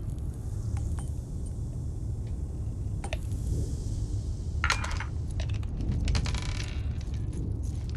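Plastic water-bottle cap being twisted and handled, giving scattered clicks and then a denser run of clicks and crackles a little after halfway, over the steady low rumble of a high-speed train's passenger cabin.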